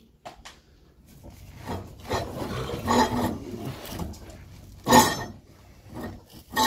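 Rubbing and scraping from hands, tools and a body shifting against the underside of a car and the concrete, with a loud scrape about five seconds in and a shorter one near the end.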